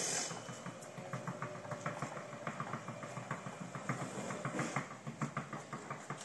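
Motorised base of a life-size Dalek prop driving forward across a workshop floor, with a steady run of light, irregular clicks and rattles.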